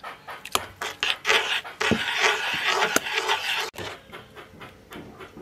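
Pot of broth at a rolling boil as seasonings go in: a loud, even bubbling hiss for about two and a half seconds that cuts off abruptly, then only faint light clicks.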